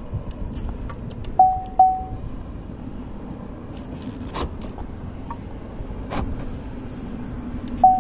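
2006 Pontiac Montana SV6's horn giving two short chirps about half a second apart, the confirmation that the doors have locked after lock is pressed twice. A couple of sharp clicks follow later over a steady low hum.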